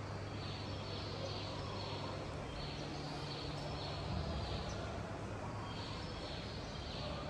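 Background ambience: runs of high chirps repeating every couple of seconds over a steady low hum that fades about halfway through.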